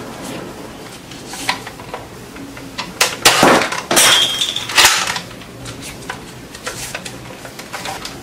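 Plastic clicks and clatter from a toy soft-dart blaster being loaded and handled, with a cluster of louder sharp clacks in the middle.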